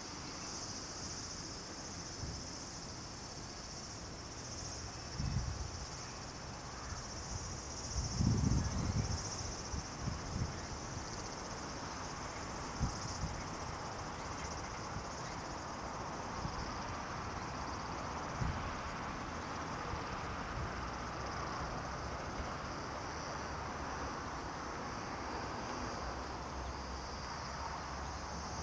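Insects chirring steadily in a high, even band, with a few low thumps about 5 and 8 to 10 seconds in.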